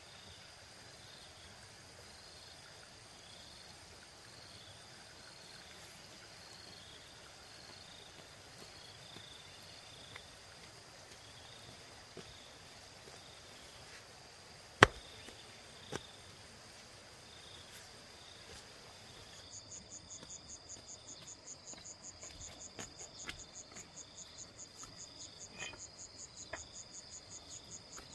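Crickets and other insects calling: a steady high trill with repeated short chirps, joined about two-thirds through by a faster, pulsing call. Near the middle come a sharp knock and a second, lighter one as flat stepping stones are set down on a dirt path.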